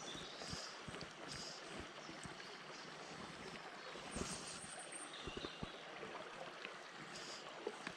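Small, shallow stream running over a stony bed: a faint, steady rush of water, with a few light clicks and rustles over it.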